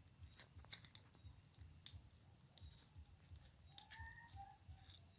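Crickets trilling steadily at a high pitch, the trill breaking off briefly a few times, with scattered sharp pops and crackles from a small wood bonfire.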